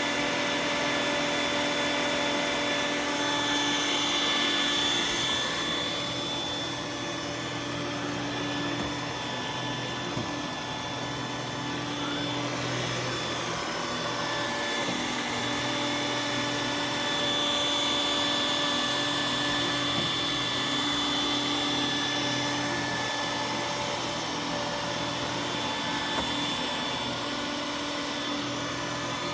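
Roomba s9 robot vacuum running, with a steady motor hum under a high whine. The whine grows louder twice, about four seconds in and again around eighteen seconds.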